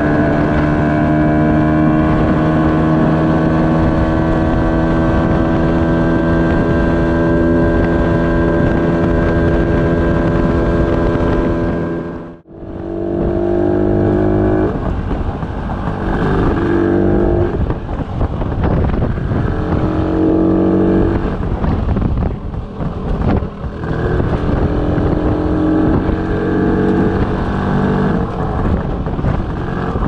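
DKW RT 125/2 motorcycle's single-cylinder two-stroke engine running under way, first at steady revs with the pitch sagging slightly. After a brief drop in sound about twelve seconds in, the revs rise and fall repeatedly.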